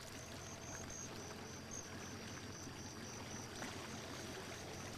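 Faint water trickling and lapping around a boat on a lake, with a faint high pulsing tone about four times a second.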